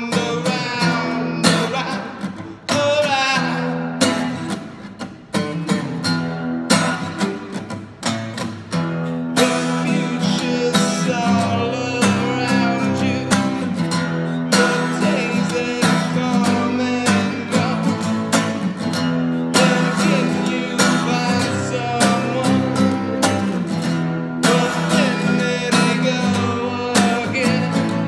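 A man singing while strumming a steel-string acoustic guitar: a solo acoustic song. The strumming becomes fuller and more even about nine seconds in.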